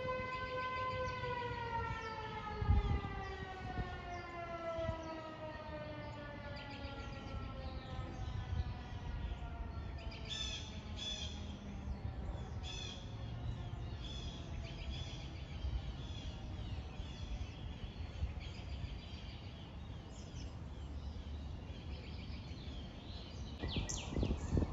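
Fire siren finishing its noon blast: a steady tone, then winding down and falling slowly in pitch as it coasts to a stop. There is a thump about three seconds in, and birds chirp through the second half.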